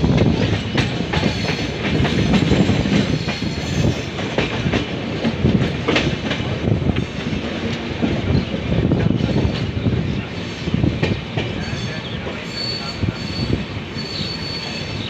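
Indian Railways passenger coaches heard from on board at speed: a steady rumble of wheels on rail with irregular clattering knocks as the bogies cross rail joints and points. Faint high wheel squeal comes in near the end.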